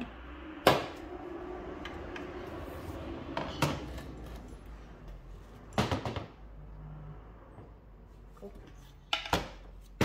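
A handful of sharp knocks at uneven intervals, some in quick pairs: a soft-faced mallet gently tapping each end of the crankshaft in the freshly joined crankcases of an early vertical Minarelli 50cc scooter engine. The taps free a crank held tight by tension in the new main bearings.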